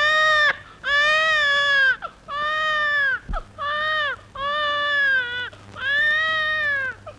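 Infant crying: a run of about six loud, high wails, each around a second long and dropping in pitch at its end, with short breaks for breath between them.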